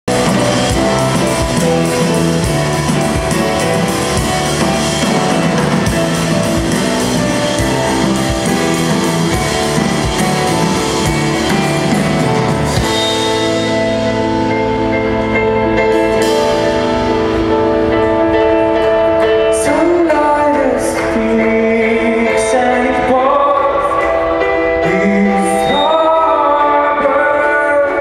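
Live rock band playing through the PA, with drums, electric and acoustic guitar, and keyboard. About 13 seconds in the dense full-band playing and cymbals drop away to held chords, and a man's singing voice comes in from about 20 seconds.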